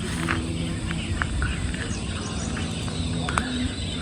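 Outdoor ambience of birds chirping and insects, over a low steady hum, with a few sharp clicks.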